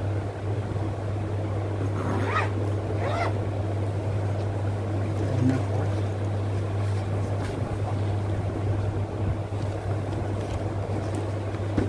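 Nylon duffle bag being handled and turned over, its fabric rustling and scraping, with two short swishes about two and three seconds in, over a steady low hum.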